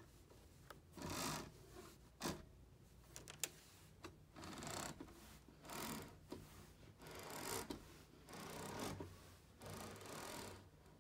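Bead chain of a dual-layer zebra roller shade pulled hand over hand through the shade's clutch: about seven short rattling strokes, one every second or two, with single clicks between, as the shade rolls.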